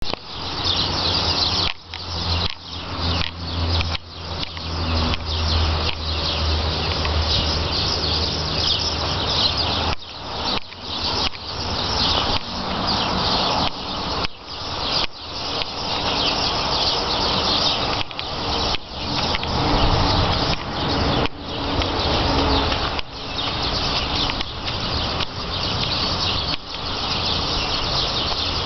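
Birds chirping and twittering in a steady, dense outdoor chorus, with a low hum underneath for about the first ten seconds.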